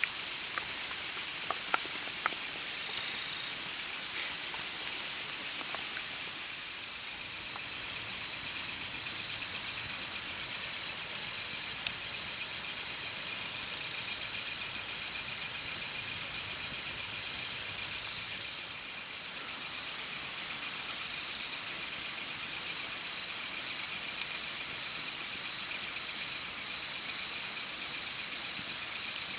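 Crickets chirring in a steady, continuous high drone, with sparse sharp pops and crackles from a wood campfire.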